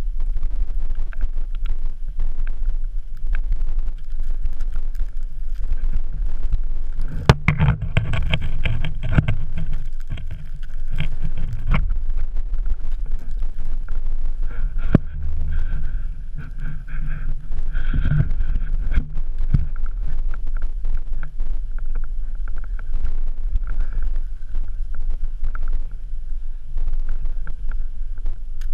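Wind buffeting an action camera's microphone: a steady low rumble, broken by scattered sharp clicks and knocks.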